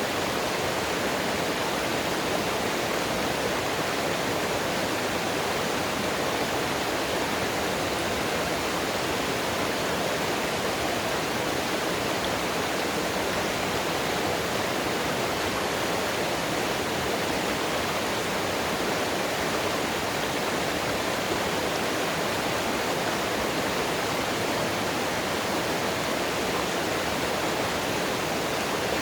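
Mountain water rushing steadily, an even unbroken rush with no change in level.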